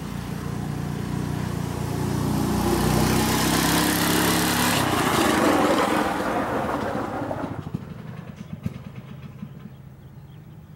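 Go-kart's Tecumseh OHH50 single-cylinder engine running as the kart drives past, its repaired clutch engaged and driving it. The sound grows louder to a peak around four to six seconds in, then fades away as the kart moves off.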